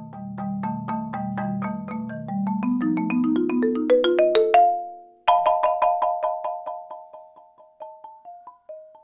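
Yamaha 5.0-octave marimba: fast repeated mallet notes over a low rolled bass, climbing in pitch and growing louder until they break off about halfway through. After a short gap a loud strike starts a run of repeated notes that slows, fades and steps down in pitch.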